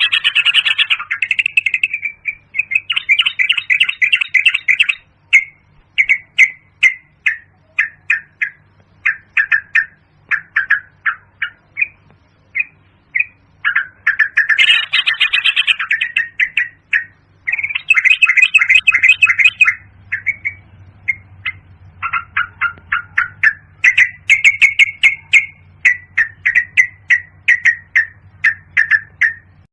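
Yellow-vented bulbul calling: bubbly chattering phrases of quick, short notes, coming in bursts with brief pauses between, over a faint low hum.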